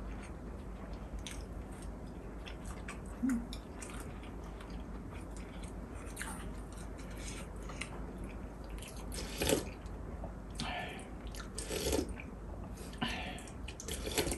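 Close-miked eating sounds: soft chewing, then several louder brief mouth noises as noodles are eaten from a bowl, with one short hum a few seconds in.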